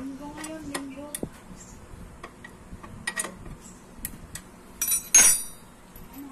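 Metal clicks and clinks from an 8 mm T-wrench working the bolts of a scooter's metal magneto inner cover. A sharp, ringing metallic clink about five seconds in is the loudest sound.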